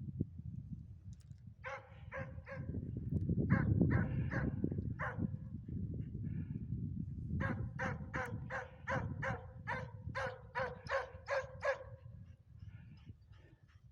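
Russian hound barking, giving tongue while running a hare: a few barks about 2 s in, more around 4–5 s, then a quick run of about a dozen barks at roughly three a second. A low rumble lies underneath.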